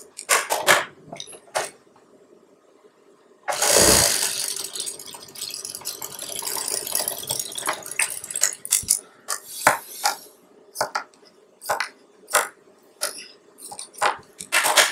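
Blouse fabric being handled and smoothed on a sewing-machine table: irregular rustles and small clicks, with one loud rustle and thump about three and a half seconds in.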